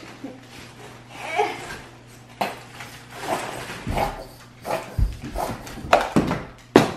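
Handling noises at a kitchen counter while a sandwich is made: an irregular string of short knocks, squelches and rustles from a plastic squeeze bottle of mayonnaise, sliced bread and its plastic bag. A few heavier thumps come near the middle and end.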